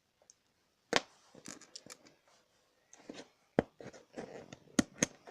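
Plastic Lego pieces being handled: sharp clicks and rattles of bricks among scratchy rustling, with the loudest clicks about a second in and near the end.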